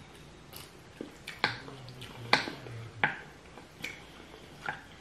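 Close-miked eating sounds: about seven sharp, wet smacks and clicks from mouths chewing rice and stewed chicken feet, the loudest a little over two seconds in.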